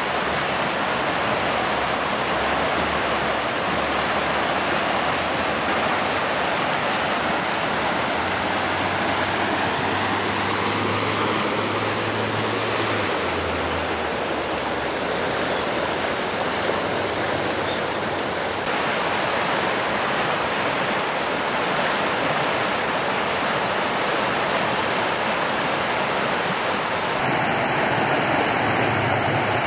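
Steady rush of a creek's white-water rapids running higher than normal.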